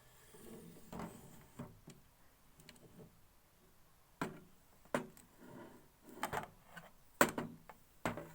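Metal tripod light stand being handled and set up: scattered clicks and knocks, a few sharper ones in the second half, with soft rustling between.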